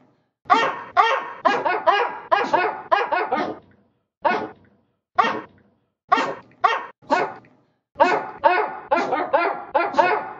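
Short, yappy barks of a small American Eskimo dog, pitch-shifted and edited into a melody. A quick run of about ten barks comes first, then a few spaced single barks, then another quick run near the end.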